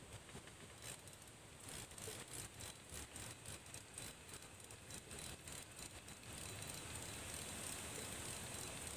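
Spinning fishing reel being cranked by hand: a quick run of soft clicks for a few seconds, then a steadier whir, over a faint steady high hiss.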